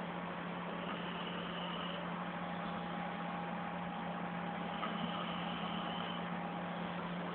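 Steady low mechanical hum over an even hiss, with a faint steady higher tone. A faint higher hiss swells twice, about a second in and again near five seconds.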